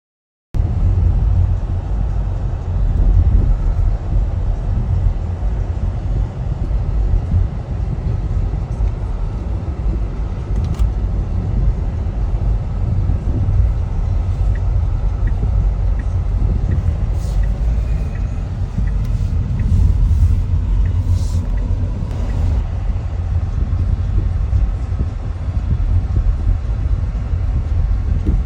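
Steady low rumble of a moving land train, a small road-going tourist train, heard from on board; it starts abruptly about half a second in.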